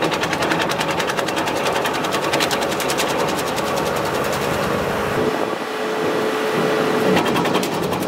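Tractor-driven ARPAL branch chopper running, chopping branches into short firewood pieces with a fast, even mechanical clatter over the hum of the drive. The clatter thins out about halfway through, leaving a steady hum, then picks up again near the end.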